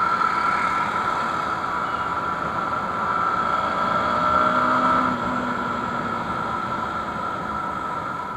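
On-board sound of a motorcycle being ridden: the engine runs steadily under rushing road and wind noise. It swells briefly, eases off about five seconds in, and keeps fading as the bike slows.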